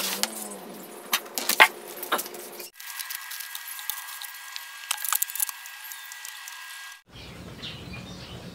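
Unpacking sounds: plastic packaging rustling and crinkling, with scattered sharp clicks and knocks as the parts are handled. The sound changes abruptly about three seconds in and again about seven seconds in.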